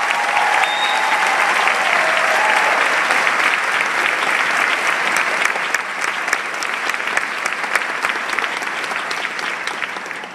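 Large audience applauding, many hands clapping densely and fading toward the end.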